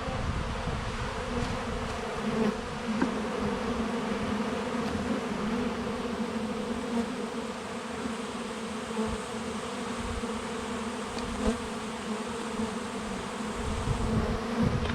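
Swarm of honey bees buzzing in flight: a steady, dense hum of many wings.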